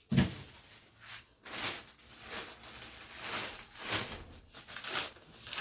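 Groceries being handled: a thump just after the start as something is set down, then repeated crinkling and rustling of packaging or bags.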